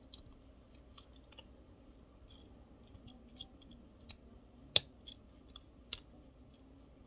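Plastic parts of a Transformers Core Class Bumblebee figure being moved and pressed together by hand: a string of light plastic clicks and ticks, with one sharper click about two-thirds of the way through as a piece snaps into place.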